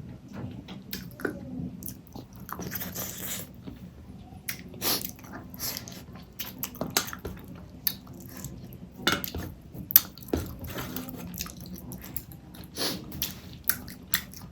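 Close-miked eating: a person chewing a mouthful of rice and fish curry, with wet mouth sounds and irregular sharp clicks.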